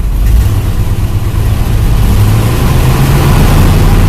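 Chevy El Camino engine running steadily from a cold start with no choke, idling well after it had been starved of fuel.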